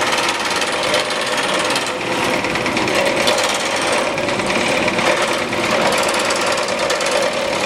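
Excalibur scroll saw running steadily, its reciprocating blade cutting through thin wood.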